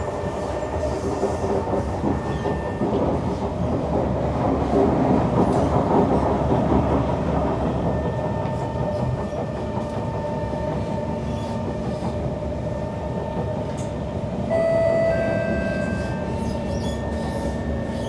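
Kawasaki C151 MRT train running on the track, heard from inside the car: a steady rumble of wheels and running gear. Steady whining tones join in during the second half and grow briefly louder about 15 seconds in.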